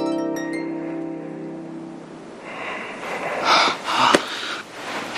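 Soft background music: a harp-like run of plucked notes that ring on and fade over the first couple of seconds. After the notes fade there are a few short breathy noises and a sharp click.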